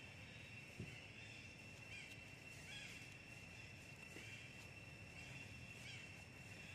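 Faint outdoor ambience: a steady high-pitched drone with short chirping calls repeating a little more than once a second, and a soft click about a second in.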